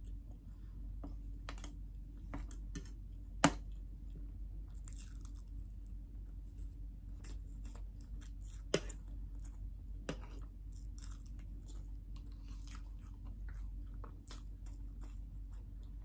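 Close-miked chewing and wet mouth sounds of someone eating chocolate Swiss roll cake, with a few sharp clicks, the loudest about three and a half seconds in.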